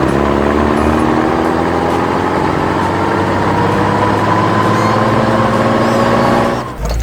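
A vehicle engine running, its pitch rising slowly and steadily as if gradually gaining revs, then cutting off suddenly near the end.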